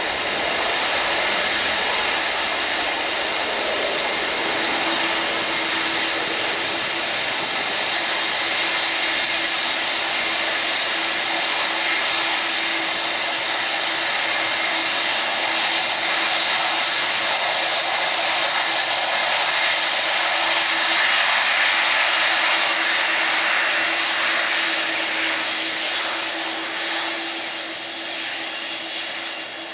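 Boeing 747 freighter's four jet engines running at high power for takeoff: a loud steady roar with a high, even whine on top. The sound builds to its loudest a little past the middle, then fades as the jet rolls away down the runway.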